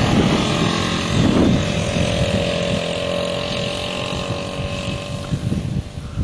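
ATV engine running over rough dirt, with two louder surges in the first second and a half, then a steady drone that fades near the end.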